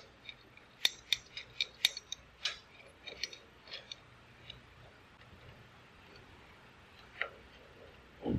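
A run of light, irregular clicks and taps of hands working metal parts on an old radial arm saw, thinning out after about four seconds, with one more click near the end and a soft knock right at the end.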